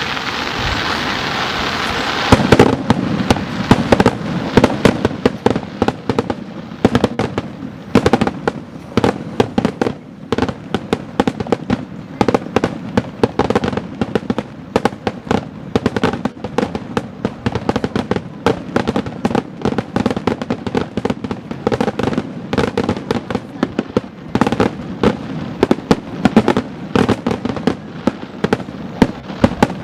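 Aerial fireworks going off in a rapid barrage: sharp bangs and crackles, several a second, beginning about two seconds in and keeping up without a pause.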